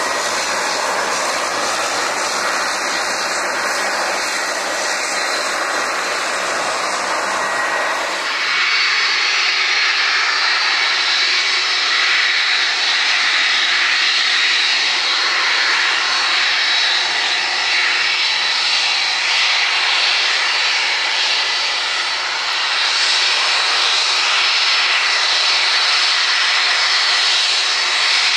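Airliner jet engines running at high power on departure, loud and steady. About eight seconds in the sound changes abruptly: the low rumble drops away and a steady high whine comes in.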